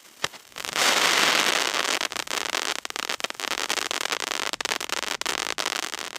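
Firework fountain burning: a sharp pop just after the start, then from about a second in a loud rushing hiss of sparks. The hiss is dense with rapid crackling and stays up through the rest, a little lower after the first second or so.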